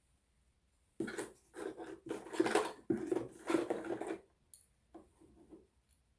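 Small metal Disney enamel pins being handled and pushed together by hand: a run of clinking and scraping from about a second in to about four seconds, then fainter rustles.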